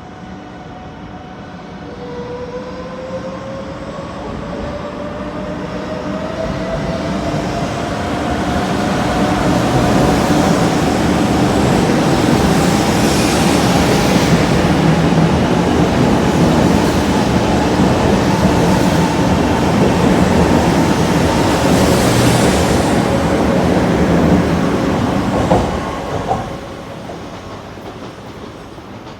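Sanyo Shinkansen train pulling out of the station and accelerating: its motor whine rises steadily in pitch while wheel and running noise build over about ten seconds. The noise then holds loud and drops off sharply a few seconds before the end as the train clears.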